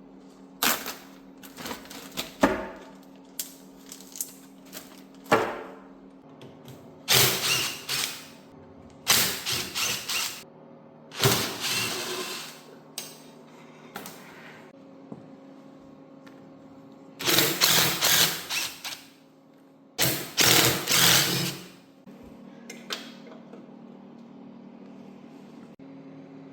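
Handheld power tool run in short bursts of one to two seconds, about half a dozen times, loosening bolts as the engine is taken off a 1973 Honda ATC70 three-wheeler, with a few clicks of tools and parts between. A steady low hum runs underneath.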